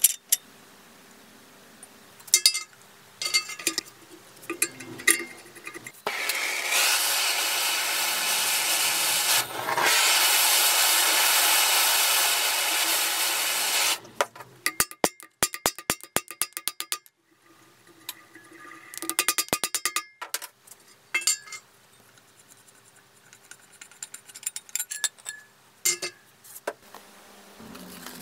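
Workshop sounds from taking apart an old bench grinder's shaft, housing and motor: scattered metal knocks and clinks, then about eight seconds of loud steady noise broken once in the middle, then a fast run of even clicks and more scattered taps.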